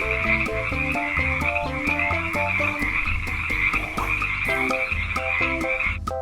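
A chorus of frogs croaking continuously, over a light tune of short notes. The frog chorus cuts off just before the end.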